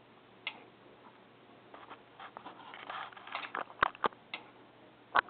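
Model trains running on the layout: irregular light clicking and ticking of small wheels on the rails, busiest about three seconds in, with two sharp clicks near the end and a faint steady hum under it.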